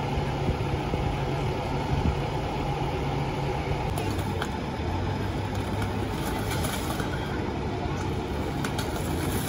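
A motor vehicle's engine idling steadily, a low hum under general street noise.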